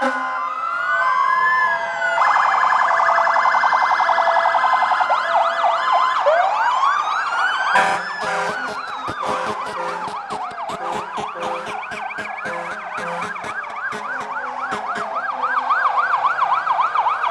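Several fire apparatus sirens sounding at once as the trucks and an ambulance pass, slow rising-and-falling wails overlapping with fast yelps.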